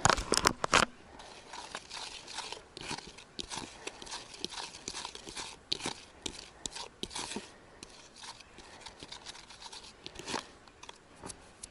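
Fingers stirring and rubbing dry powdered carp bait (dusting dough) in a plastic bowl: a run of crisp scratching and rustling, after a burst of louder rustles and knocks in the first second.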